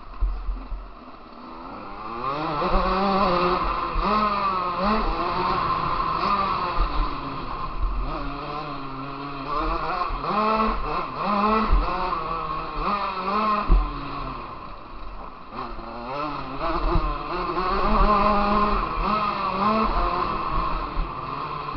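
KTM motocross bike engine revving hard, its pitch climbing and dropping again and again as the throttle opens and shuts through the lap. Heard from an on-board camera, with low wind rumble and knocks on the microphone.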